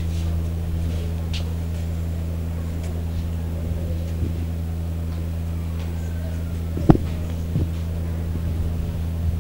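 A steady low hum, with a single sharp knock about seven seconds in.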